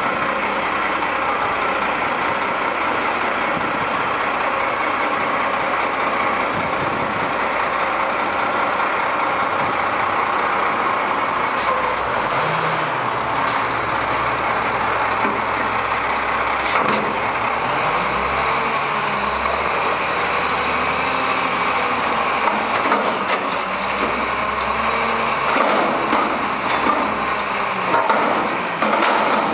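Front-loader garbage truck's diesel engine running as it pulls up to a dumpster and its hydraulic forks lift the container over the cab. Sharp clanks come now and then, more of them near the end as the can is tipped.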